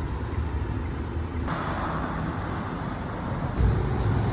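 Street traffic noise: a steady low rumble, with a louder hiss like tyres on the road from about a second and a half in until near the end.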